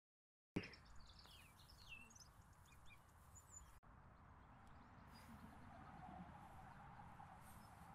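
Faint outdoor ambience with small birds chirping, quick high chirps in the first few seconds, and one sharp click a little before the middle.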